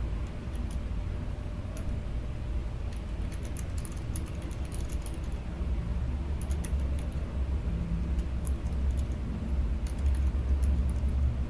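Typing on a Keychron K7 ultra-slim low-profile mechanical keyboard: light, irregular key clicks in short runs, over a steady low rumble.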